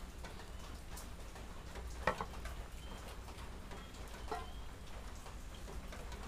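A few light knocks of small metal cookware being handled and set down on a wooden table, the loudest about two seconds in and another about four seconds in, over a faint low hum.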